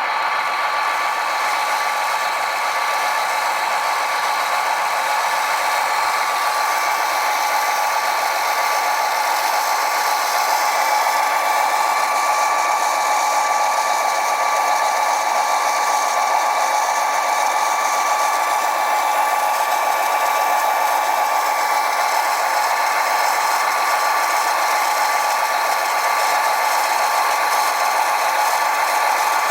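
Electric motor of a heavy radio-controlled construction machine running with a steady, unchanging whine.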